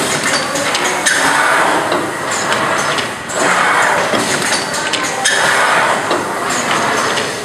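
Automatic blister-card thermoforming and sealing machine (PVC blister onto paper card) running through its cycle: a surge of noise about every two seconds, with metallic clanks and knocks throughout.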